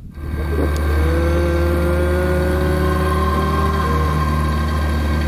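Boat outboard motor running at a steady speed, cutting in suddenly: a loud, even low drone with thin whining tones over it.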